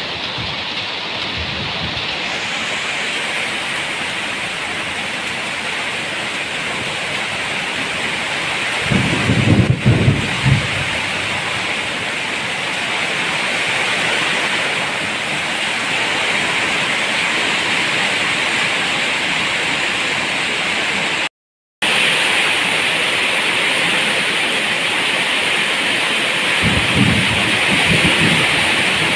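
Steady heavy rain, with short low rumbles of thunder about a third of the way in and again near the end. The sound drops out for a split second about two-thirds of the way through.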